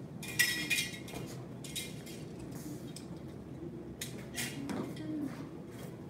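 Pair of butterfly knives clinking blade against blade: two ringing metallic clinks about half a second in, then fainter clinks a little past four seconds.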